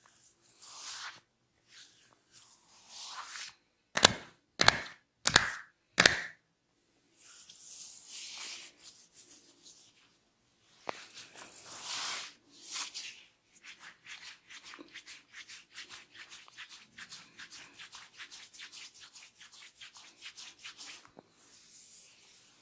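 Hands massaging skin with soft rubbing swishes. About four seconds in come four loud sharp smacks within two seconds. After more rubbing, a long fast run of light clicks follows.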